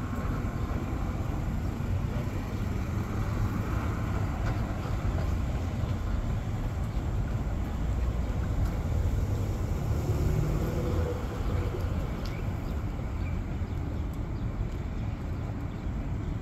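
Steady low outdoor rumble with no distinct event, the kind of noise made by wind on a phone microphone and distant traffic.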